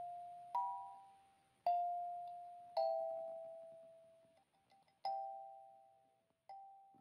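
Kalimba tines plucked one note at a time, slowly, each note ringing and fading away. There are five notes, with a longer pause with a few light clicks near the middle. The last note rings out at the close of the piece.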